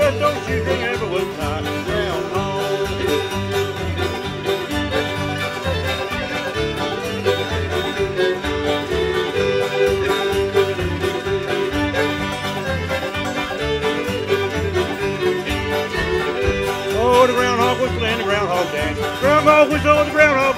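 Old-time string band playing a dance tune on two fiddles, two banjos, guitar and upright bass, over a steady bass beat.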